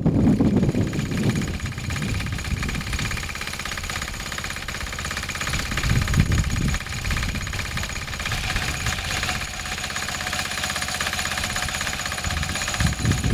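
A small engine running steadily, with a rapid, even pulse.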